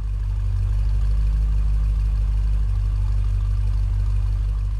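A 1976 Corvette's V8 engine idling steadily at a low, even pitch, swelling in over the first second.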